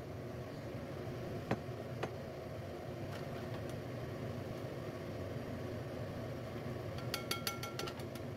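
Steady low hum throughout, with a couple of light knocks and a quick run of ringing clinks near the end as drained cauliflower florets are tipped from a plastic colander into a ceramic bowl.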